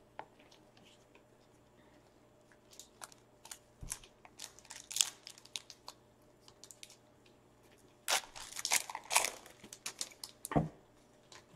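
A foil trading-card pack wrapper being torn open and crinkled by hand: scattered crackles, then a dense burst of crinkling about eight seconds in, with a couple of soft thumps.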